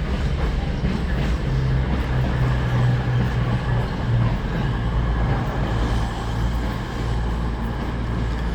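A train's engine running steadily, a low hum with a wavering drone.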